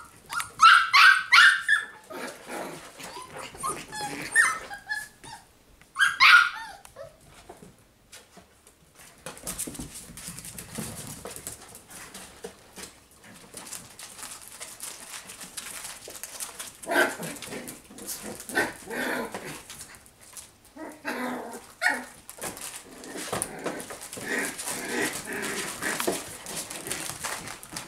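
Puppies barking and yipping while play-fighting, in high-pitched yaps. The loudest barks come in the first few seconds, and softer yips return off and on later.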